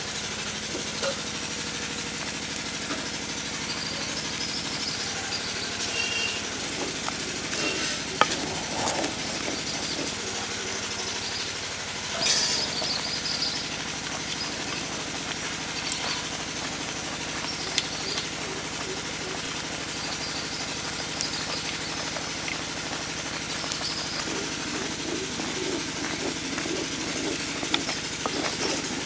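Mango pulp simmering in a clay pot over a wood fire, a steady hiss with a few sharp crackles. Near the end comes a rhythmic scraping as a wooden spatula stirs the pulp hard against the pot.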